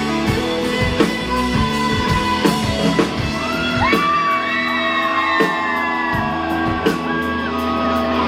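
Live rock band playing in a hall, with electric guitar chords and regular drum hits. From about four seconds in, several high voices shout and whoop over the music.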